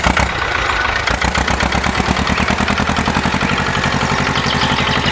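Vehicle engine running with a steady, rapid, even chugging rhythm. It comes in just after the start.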